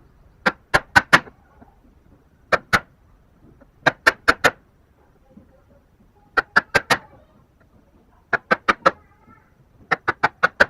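Quick clusters of sharp blows on a wood chisel, usually about four in a row, repeating every second or two, as the chisel chops into the wood of a hand-cut joint.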